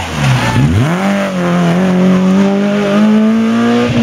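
Renault Clio rally car's engine dropping to low revs through a hairpin, then accelerating hard out of it about a second in, the revs climbing steadily through one gear until an upshift right at the end.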